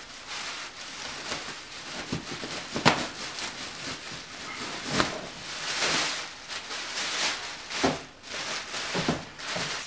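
Plastic packing bag rustling and crinkling as it is pulled open by hand, with a few sharp crackles, the loudest about three seconds in.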